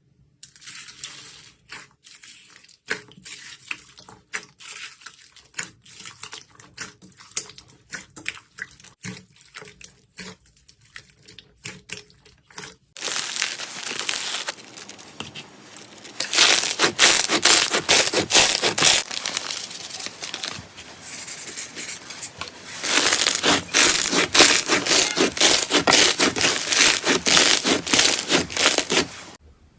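Slime being squeezed and pulled by hand: soft sticky pops and clicks at first, then, after a cut about 13 seconds in, a much louder dense crackling and popping that runs on with a few short dips.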